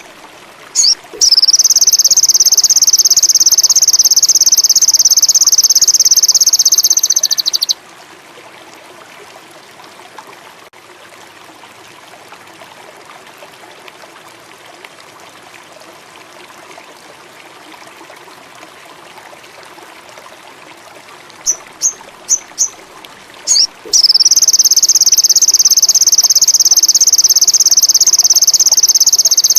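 Sogon indigo song: a few short high chirps, then a long, loud, rapid high trill of about six seconds. The same phrase comes again about 21 seconds in and runs to the end, over a steady trickle of running water.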